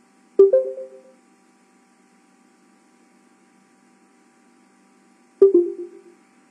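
Two short electronic notification chimes about five seconds apart. Each is a quick two-tone ping that fades within about half a second: the video-conference alert for an attendee joining or leaving the meeting. A faint steady hum lies between them.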